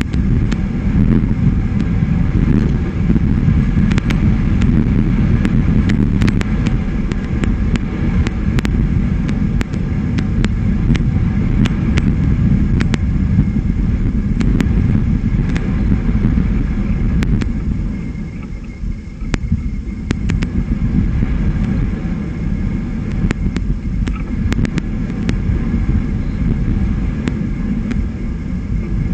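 Wind rumbling on an outdoor nest-cam microphone, a steady, loud low rumble that eases briefly about two-thirds of the way through, with frequent sharp clicks over it.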